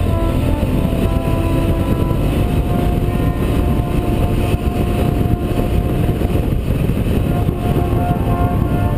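Motorcycle riding at a steady speed, heard from a camera on the bike: a steady, heavy wind rumble on the microphone over the running engine.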